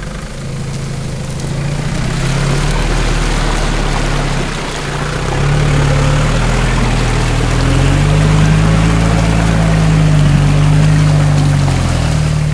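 Nissan Patrol's engine pulling under load through a flooded mud track, its revs easing about four seconds in, then holding higher. Water sloshes around the tyres.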